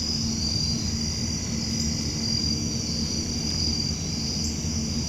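Steady high-pitched insect chorus, like crickets, droning without a break over a low, steady rumble.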